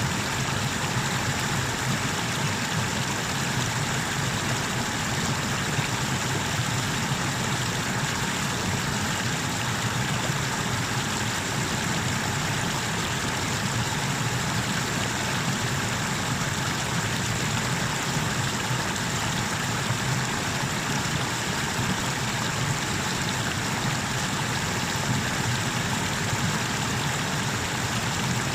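Water rushing steadily over a small river waterfall, a constant even roar that does not change.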